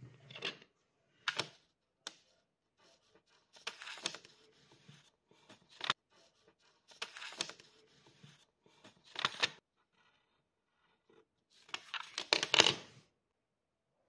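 A sheet of paper rustling and crinkling as it is handled, in short separate bursts with quiet gaps between, the loudest near the end.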